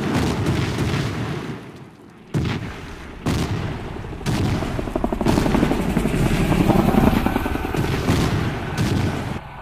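A series of heavy explosions with rapid machine-gun fire, from an attack helicopter's strike. A sudden blast opens it and fades over the next two seconds. Further blasts follow about once a second from a little after two seconds in, and rapid fire runs through the louder middle stretch.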